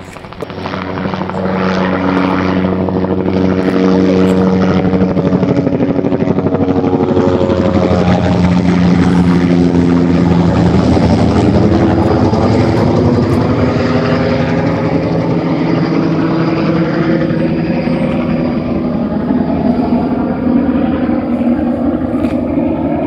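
Police helicopter flying low overhead: the rotor noise swells in over the first couple of seconds, stays loud, and its pitch falls as it passes over.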